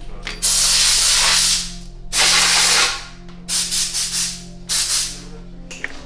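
Loud bursts of hissing: two long ones of about a second each, then several shorter ones. Faint steady background music runs underneath.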